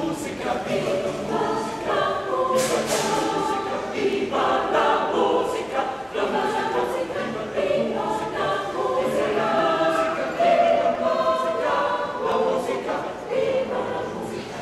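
Adult mixed choir of women and men singing together.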